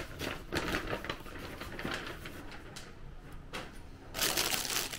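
Plastic grocery packaging crinkling and rustling as it is handled, with irregular clicks and a louder crackle near the end.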